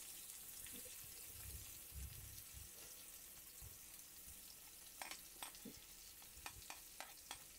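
Chopped onions sizzling faintly in hot oil in a steel kadhai, a steady hiss. From about five seconds in, a spoon clicks and scrapes against the plate in a string of light taps as the last onion pieces are pushed into the pan.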